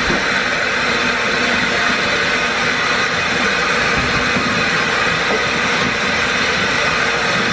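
Bathtub faucet running, water pouring steadily into the tub.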